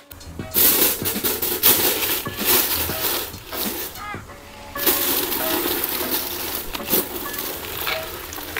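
Aluminium foil crinkling and crackling as it is pressed and crimped down around the rim of a large steel pot, sealing it for dum cooking, over background music.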